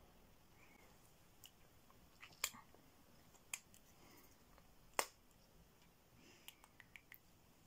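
Quiet room broken by a few small sharp clicks and lip smacks from applying lipstick and pressing the lips together. The loudest click comes about five seconds in, with a quick little cluster near the end.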